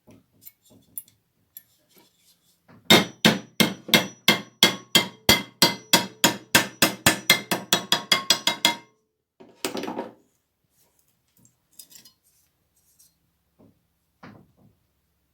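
Hammer blows on sheet steel clamped in a bench vice, forming a folded repair panel: a fast, even run of about thirty strikes, roughly five a second, lasting about six seconds, with a metallic ring. A short rasping noise follows, then a few light taps.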